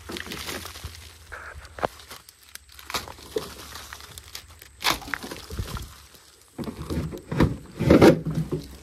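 Irregular crunching, crackling and scraping as dry debris and rotten, splintered boards around an old metal door are pushed and shifted by hand. The loudest scrapes and knocks come near the end.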